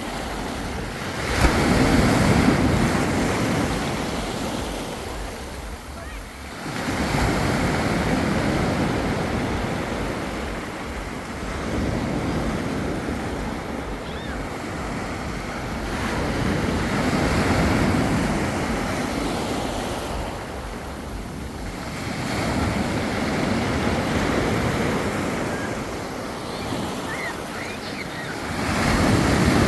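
Black Sea surf breaking on a beach: waves swell and wash out one after another, about every five to six seconds, with wind rumbling on the microphone.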